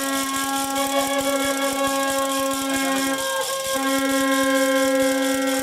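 A horn blown from the stands in two long, steady blasts on one pitch, with a short break a little past the middle. A fast clicking rattle runs underneath.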